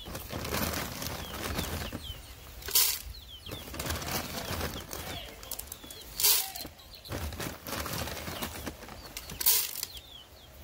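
Young barred chickens in a straw-floored pen peeping faintly, with a rustling in the straw and three short, loud rustling bursts about three seconds apart.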